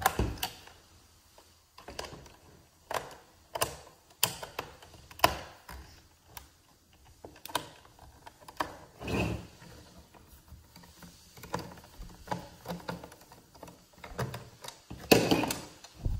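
Irregular clicks and knocks of a screwdriver working a stubborn screw in the plastic fan shroud of a cordless leaf blower, with the plastic housing being handled, and a louder clatter near the end.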